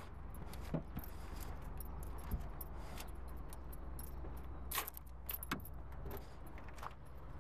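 Footsteps crunching on gravel, with a scatter of light clicks and jingles over a steady low rumble. The loudest clicks come about two thirds of the way through.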